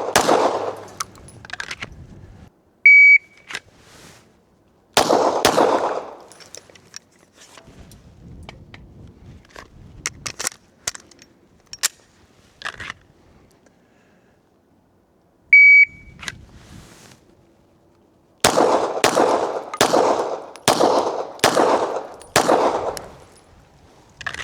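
9mm Glock 17 pistol shots with the high electronic beep of a shot timer. There is a shot at the very start. A timer beep about three seconds in is followed by one shot; a few fainter cracks come in the middle. A second beep comes a quarter of the way from the end's start, then a quick string of six shots about two-thirds of a second apart near the end.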